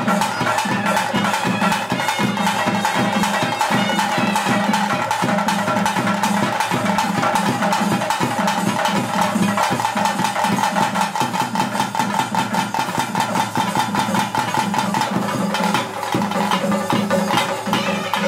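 Traditional ritual band music: fast, continuous drumming with a steady pipe-like tone held over it. A new held note enters near the end.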